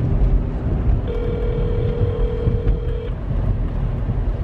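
Phone ringback tone heard over speakerphone: one steady two-second ring while an outgoing call goes unanswered, over the low rumble of a car cabin.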